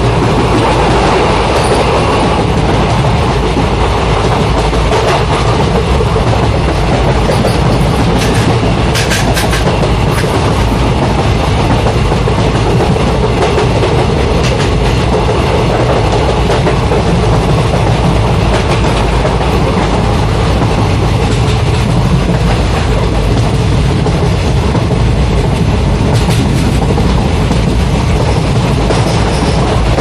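A train running on the rails: a loud, continuous rumble and rattle that holds steady throughout, with a few sharper clicks about eight to ten seconds in.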